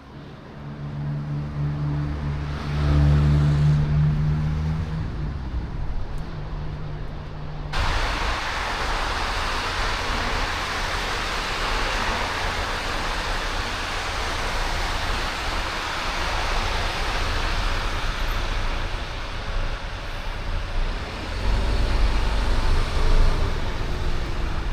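Street traffic: a motor vehicle's engine runs close by with a steady hum for several seconds. The sound then switches abruptly to a loud, even rush of passing traffic, with a heavier low rumble near the end.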